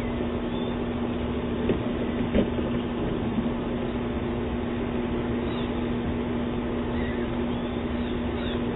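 Ring doorbell camera audio: a steady hiss with a constant low hum, and a few faint knocks about two seconds in.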